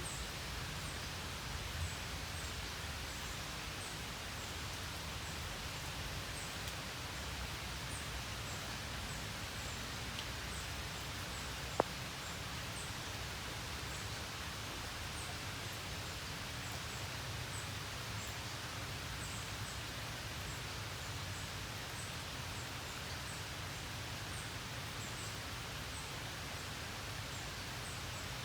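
Steady rain falling, an even hiss, with faint short high chirps every second or so and one sharp click about twelve seconds in.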